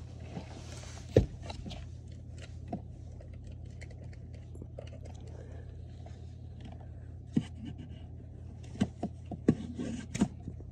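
Scattered clicks and knocks from objects being handled: a sharp one about a second in, then a cluster of them near the end, over a steady low hum.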